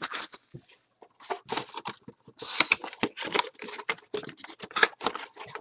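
Trading-card box packaging being torn open and handled: a rapid, irregular run of cardboard and wrapper rustles, tears and scrapes.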